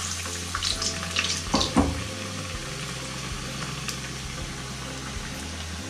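Batter-coated bread pakora deep-frying in hot oil in a kadhai: a steady sizzle, with crackling pops mostly in the first couple of seconds after it goes in.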